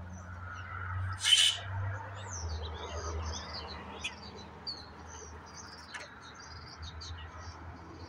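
Small songbirds chattering in a rapid string of short, high chirps and twitters, with a loud harsh rasp just over a second in, over a low steady hum.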